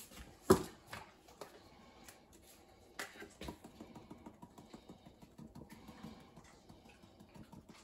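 Seasoning shaker shaken over a roasting pan: quick, faint ticking and rattling, with a sharper click about half a second in and another about three seconds in.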